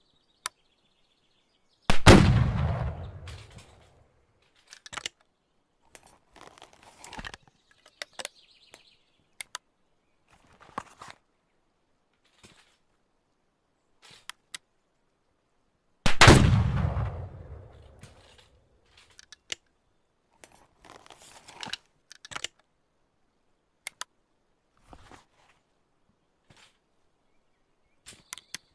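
Two shots from a Sharps falling-block rifle, about fourteen seconds apart, each a sharp report followed by a long fading boom. Between and after the shots come scattered small clicks and knocks, the handling of the single-shot rifle's action.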